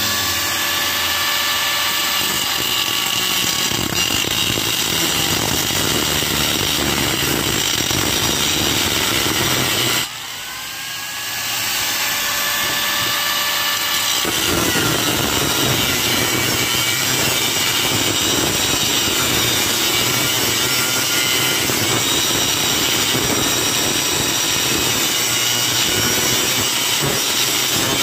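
Angle grinder with a cutting disc cutting into the steel shell of a hermetic refrigerator compressor, a steady grinding noise. About ten seconds in it comes off the metal and runs free, its whine rising as it spins back up, then bites back into the cut about four seconds later.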